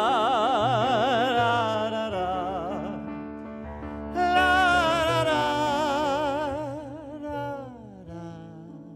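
A man singing a wordless "la la" vocalise in an operatic style, holding a high note with wide vibrato, then a second loud phrase about four seconds in that slides down near the end, over piano accompaniment.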